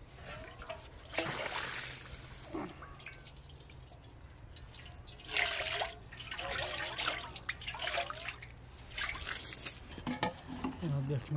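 Water being poured and splashing in four short bursts of about a second each.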